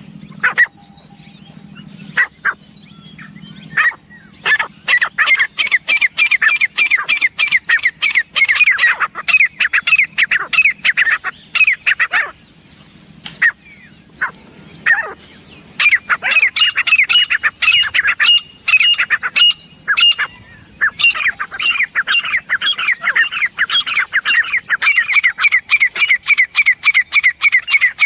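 Grey francolin (teetar) calling: loud, rapid runs of sharp, repeated notes, several a second, in two long bouts with a short break between.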